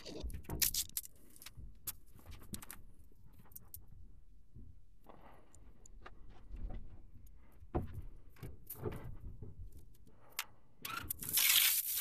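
Scattered clicks, knocks and rustling from someone moving about in an attic crawl space and handling the camera, with a louder stretch of scraping and rustling near the end.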